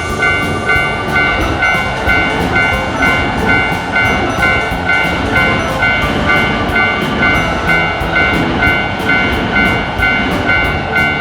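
Railroad crossing warning bell ringing in a steady repeating beat over the rumble and rhythmic clatter of a passing train.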